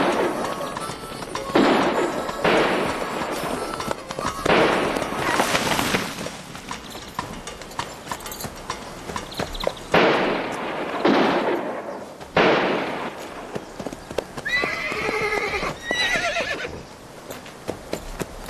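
Revolver shots fired singly at uneven gaps, about eight over the first twelve seconds, each with a ringing tail. About fourteen seconds in, a horse whinnies.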